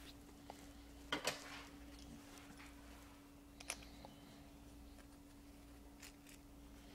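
Faint metallic clicks of a drafting compass being picked up and adjusted, a few separate ticks over a steady low room hum.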